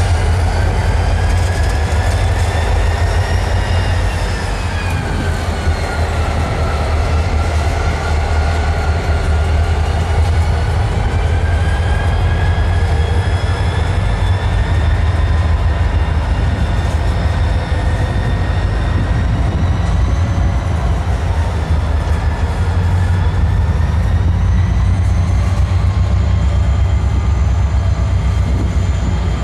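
Freight train of covered hoppers and gondolas rolling past close by: a steady low rumble with wheels squealing in high tones that slowly waver up and down.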